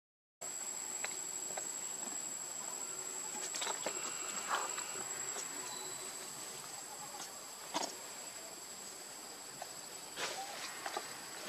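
Steady high-pitched insect drone, with a few scattered rustles and clicks. The sound drops out for a moment at the very start.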